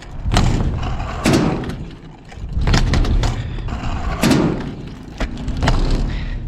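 Stunt scooter rolling on concrete with a rough rumble, broken by about half a dozen loud thuds and clatters as the wheels and deck slam down.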